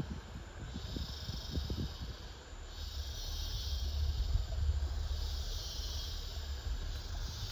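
Rainforest insects calling in a high, hissing drone that swells and fades in pulses of about a second and a half, four times, over a low steady rumble.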